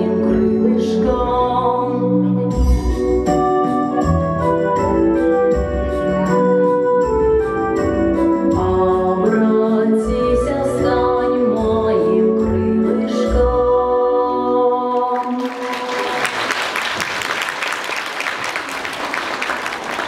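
The closing bars of a song played on a backing track, with sustained organ-like chords, end about three quarters of the way in, and an audience breaks into applause that carries on to the end.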